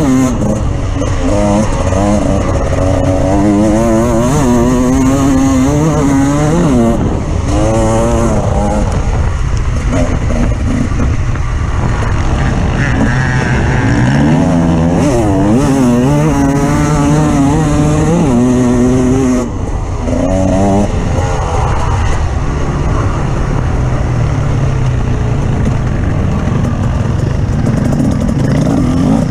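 Off-road vehicle engine running hard over rough ground, its revs rising and falling again and again with the throttle, with a constant rushing noise underneath.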